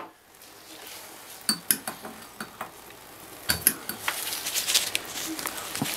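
Small metal clicks and clinks of a hand tool against the chrome handle and trim of a single-handle bathtub faucet while it is taken apart. The clicks are scattered at first and come thicker near the end.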